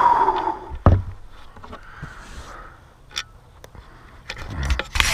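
Wooden slab being handled: a squealing scrape at the start, a sharp knock about a second in, then scraping and rubbing of wood building near the end.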